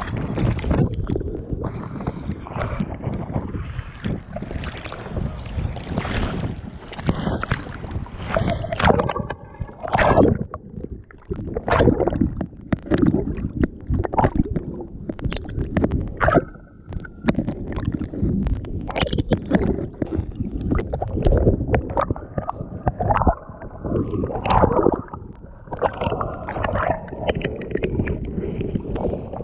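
Choppy, wind-driven waves splashing and gurgling around a capsized kayaker floating in a life jacket, in uneven surges, with wind buffeting the microphone.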